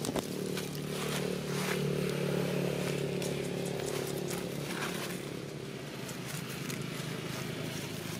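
A motor engine hums steadily, growing louder over the first couple of seconds and fading away after about four and a half seconds. Dry leaves crackle and rustle under a macaque's feet as it walks.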